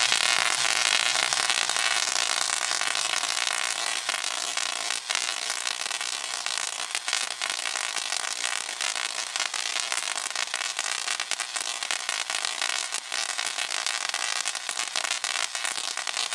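Spark-gap Tesla coil firing, with a single arc from its toroid striking a grounded rod: a loud, steady electrical crackle of sparks.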